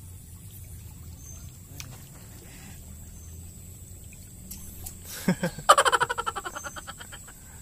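Steady low rush of flowing stream water. About five seconds in comes a sudden thump, then a fast rattle of clicks that fades out over about a second.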